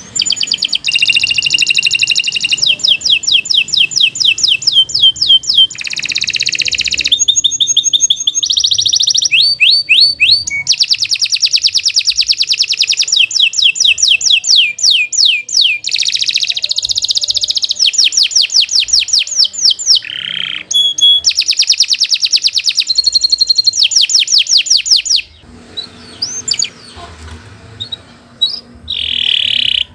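Domestic canary singing a long, continuous song of fast trills: rapid runs of repeated high notes that change from phrase to phrase. The song breaks off about 25 seconds in and resumes near the end.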